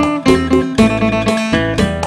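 Acoustic phin, the Isan lute, plucked in a quick melody of about four notes a second with a low bass note sounding underneath.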